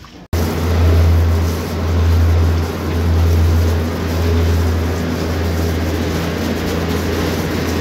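A machine running with a loud, steady low hum and a rush of noise over it. It starts abruptly, as if cut in, and swells and eases a little every second or so.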